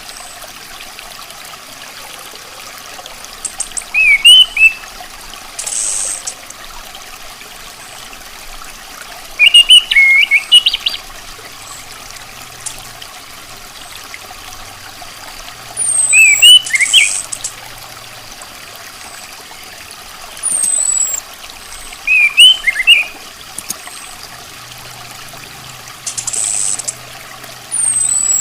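Orange-headed thrush calling: short high chirping phrases about every six seconds, mixed with thin, high, downward-slurred whistles and a few brief hissy notes. Under them runs a steady trickle of water.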